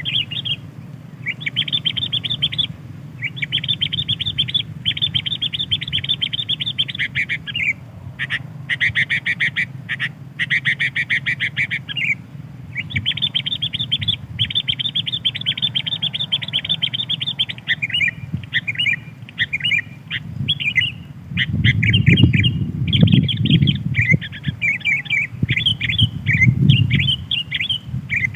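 Sooty-headed bulbul calls used as a lure: long runs of fast chattering notes, broken by short pauses. A low rumbling noise underneath grows louder in the last third.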